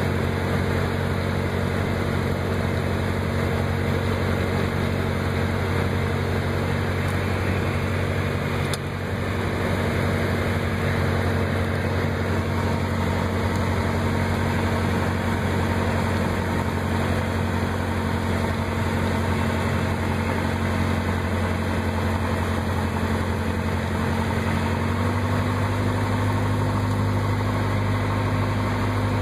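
Piper Cherokee's piston engine and propeller droning steadily, heard inside the cockpit on final approach to landing. There is a brief dip about nine seconds in, and about 25 seconds in the drone steps slightly higher and louder.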